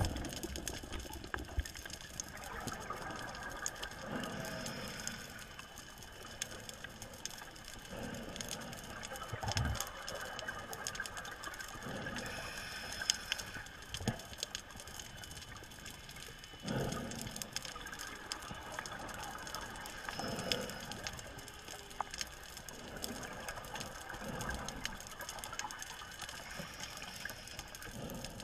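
Underwater sound of scuba diving: muffled water noise with low gushing swells of divers' breathing and bubbles every few seconds, over a scatter of faint clicks.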